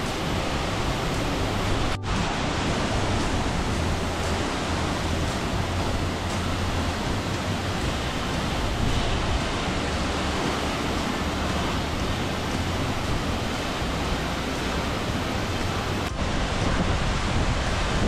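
Steady roar of a large, tall waterfall crashing onto rocks, a dense, unbroken rush of water with only brief dips about two seconds in and again near the end.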